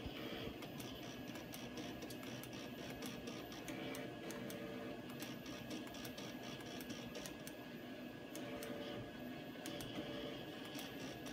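Stepper motors of a homemade robot arm whining in short runs as the arm drives its joints, with scattered small clicks.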